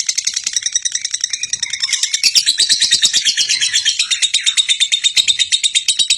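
Lovebird singing a long 'ngekek': a continuous, very rapid chattering trill of sharp high notes, cutting off suddenly at the end.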